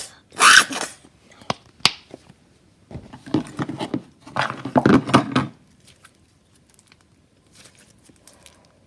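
Hands kneading and pulling a stiff slime with lotion being worked in. It makes noisy handling bursts over the first six seconds, with two sharp clicks near two seconds in. The slime is still too tough to stretch.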